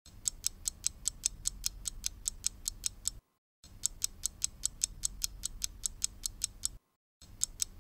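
Ticking clock sound effect counting down a quiz timer: fast, even ticks, about six a second, that stop briefly a little after three seconds and again near seven seconds.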